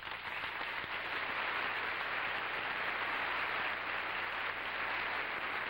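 Audience applause, quickly swelling up and then holding steady as a dense, even clapping.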